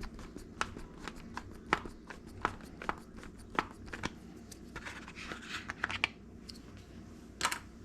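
Small plastic clicks and handling noises as the battery door of a toy amphibious RC airplane is worked open, with a short rustle about five seconds in and a sharper click near the end.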